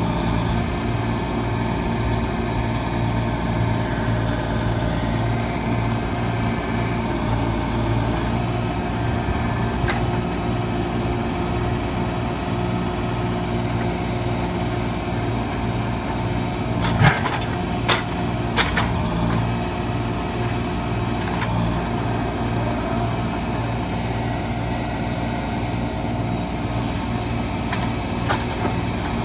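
Engine of log-loading machinery running steadily. Three or four sharp knocks come about 17 to 19 seconds in.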